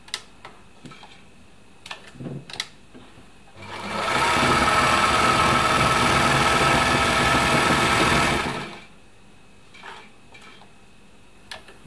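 1972 Elna Supermatic SU 62C sewing machine running fast and smoothly for about five seconds, sewing a cam-driven decorative stitch. It starts about four seconds in and stops abruptly, with a few small clicks before and after.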